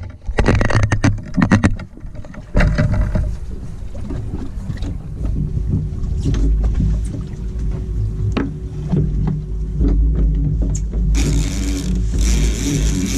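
Knocks and clicks of handling a big-game rod and reel on a boat's gunwale as a baited line is set, over a steady low rumble of wind on the microphone. About eleven seconds in, a loud steady hiss starts and runs for some three seconds.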